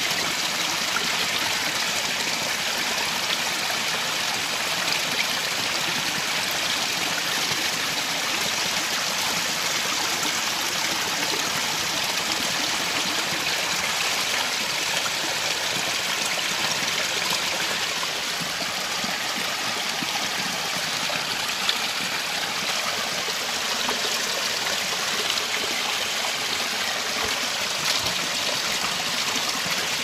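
Mountain stream water tumbling over rocks in a small cascade: a steady, even rush and splash.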